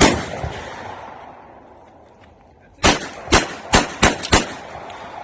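Pistol shots with an echoing tail: one shot right at the start, then after a pause of almost three seconds a quick string of five shots about a third of a second apart.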